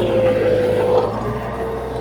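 Heavy diesel earthmoving machinery running steadily, with a held whine that drops slightly in pitch about halfway through.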